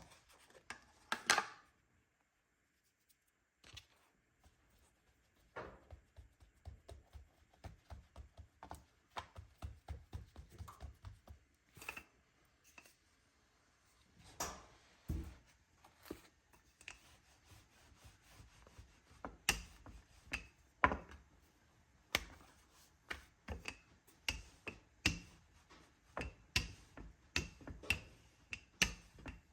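Irregular sharp taps and knocks of kitchen utensils being handled, some with a short ring, with a brief near-silent gap about two seconds in.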